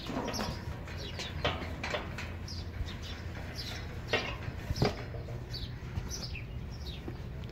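Small birds chirping over and over, each call a short quick downward sweep, with a steady low hum underneath and a few light knocks.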